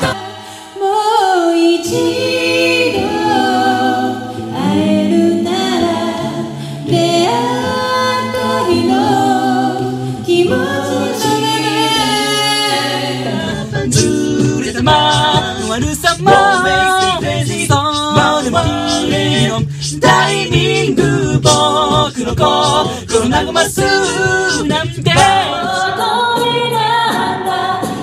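A cappella group singing in close harmony, several voices with no instruments. About halfway through it changes to another group, where a beatboxed vocal percussion beat runs under the harmonies.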